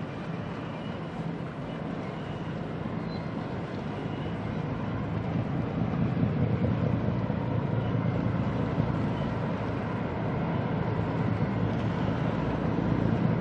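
A newly built ferry's hull sliding down the launching ways into the water: a steady low rumble that grows louder about five or six seconds in as the hull enters the water.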